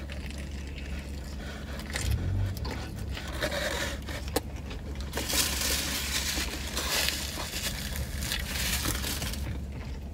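Close-up eating sounds: biting into and chewing a chicken teriyaki sub while its paper wrapper crinkles and rustles, the crinkling loudest from about halfway through. A steady low hum runs underneath.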